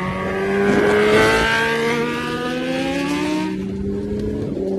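Kawasaki H2R's supercharged inline-four, breathing through a Vandemon aftermarket exhaust, pulling hard under acceleration, its pitch climbing steadily for about three and a half seconds and then levelling off.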